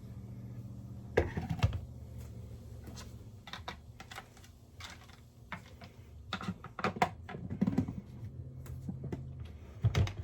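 Irregular clicks, taps and knocks of things being handled on a countertop, scattered and uneven, over a faint steady low hum.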